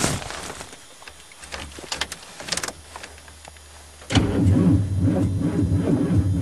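A car's starter motor cranking the engine for about two and a half seconds, beginning about four seconds in, without it starting: the battery is too weak after sitting out the winter and will need a booster. Light clicks and handling noises come before it.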